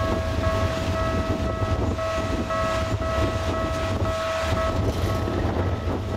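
Japanese railway level crossing alarm ringing in a steady repeating clang, over a continuous low rumble.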